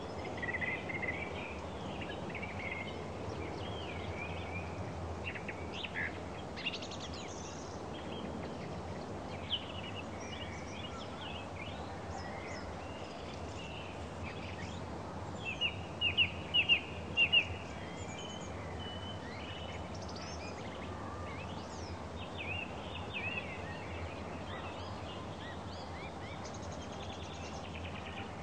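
Small songbirds chirping and twittering on and off, with a quick run of loud, sharp chirps about halfway through, over a steady low rumble.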